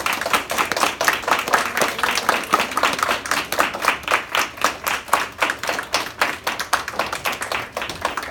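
An audience of schoolchildren clapping as a group: fast, dense hand claps that begin to thin out near the end.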